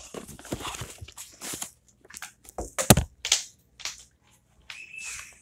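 Camera handling noise: irregular rustling, rubbing and knocks as the camera is moved about and brushed against clothing, with the loudest knock about three seconds in. A brief high squeak comes near the end.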